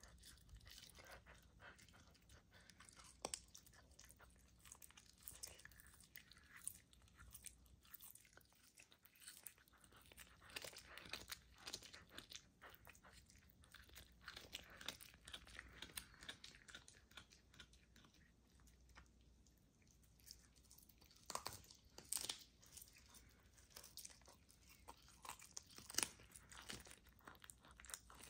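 Serval chewing a raw chicken wing held in a hand, with irregular sharp crunches as it bites through the meat and bone; a few louder crunches come in the second half.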